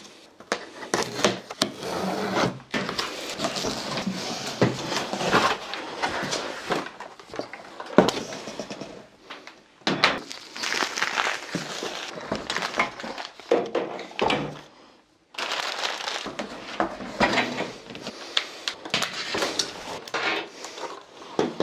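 A cardboard box being unpacked: tape slit with a knife, flaps pulled open, and packaging rustling and crackling. The parts of an airless paint sprayer are lifted out and set down on a workbench with scattered knocks and clicks.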